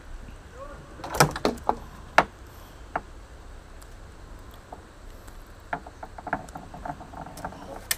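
Irregular knocks and clicks of fishing line and tackle being handled in a small boat. The sharpest come about a second and two seconds in, with a run of lighter taps near the end, over a steady low rumble.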